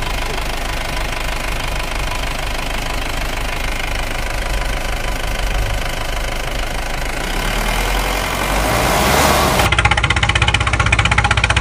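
Engine sound effect of a motor vehicle running steadily. About ten seconds in it switches abruptly to a different, rhythmically pulsing engine sound, matching the change from the toy pickup to the toy tractor.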